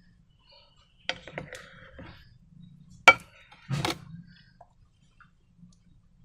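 A few sharp clinks and knocks of hard objects being handled, with softer scraping between them; the loudest knock comes about three seconds in.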